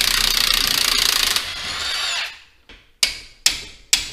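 Cordless impact wrench hammering loose the bolt that holds the leaf spring to the old rear shackle, then running more quietly until it stops at about two seconds. About three seconds in, a hammer starts striking the steel shackle, about two blows a second.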